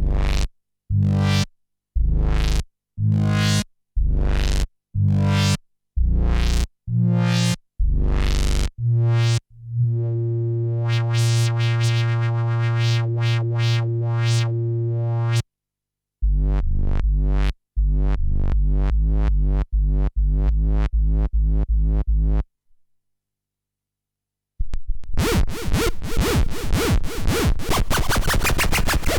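Roland JD-990 synthesizer playing patches from a sound pack. First comes a run of about nine short chords with heavy bass, then a chord held for several seconds, then fast repeated notes. After a pause of about two seconds, a dense noisy patch starts near the end.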